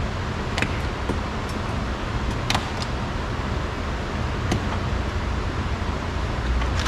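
A few sharp plastic clicks as a door's mirror trim piece is worked loose and snapped off, over a steady low background rumble.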